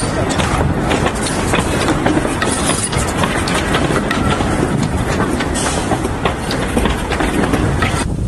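Narrow-gauge railway passenger coaches rolling past close by: a steady rumble with the wheels clicking over the rail joints.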